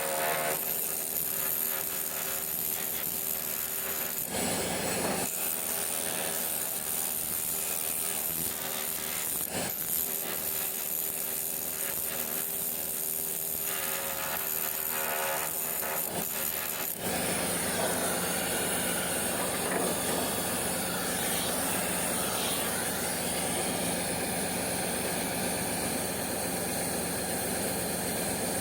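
Continuous industrial work noise, a steady hiss over machine hum, of the kind heard during welding work. About two-thirds of the way in it changes to a rougher, fuller noise with wavering tones.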